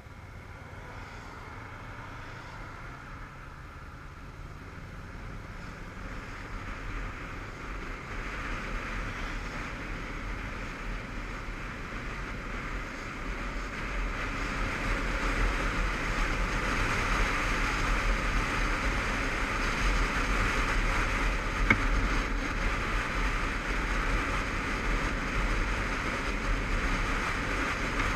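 Riding on a Honda CBF500's parallel-twin motorcycle, heard from a helmet-mounted camera: wind rush and engine, growing steadily louder as the bike picks up speed. A single sharp click about three quarters of the way in.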